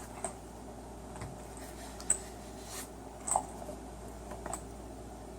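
Light handling noise of ammunition and magazine: four or five short, faint clicks about a second apart, the sharpest about two seconds in, over a steady low room hum.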